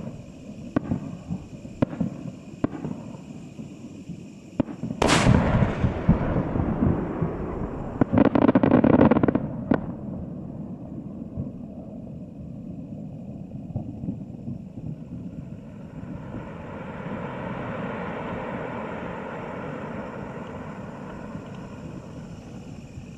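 Aerial firework shells bursting, heard from about a kilometre away: a few sharp reports, then a very loud boom about five seconds in with a long rolling echo, and a dense crackling volley around eight to ten seconds in before the sound dies away.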